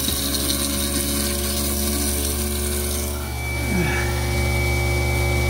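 A newly installed garbage disposal running steadily on its first test run, its motor giving an even hum, with tap water running into the sink drain.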